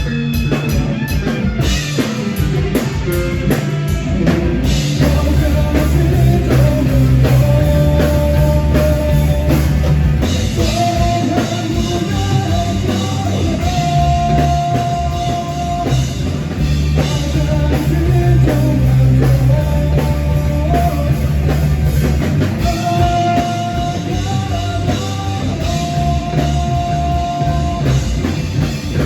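Rock band playing live: drum kit, bass and electric guitars, with a held melodic line over them.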